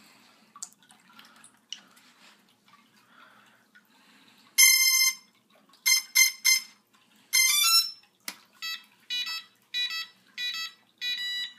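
Micro Gear CX20 quadcopter's electronics beeping on power-up after the battery is plugged in: a few faint connector clicks, then one long beep, three short beeps and a rising three-note tune. After a sharp click, short stepped beeps repeat about every half second while the drone sits powered and disarmed.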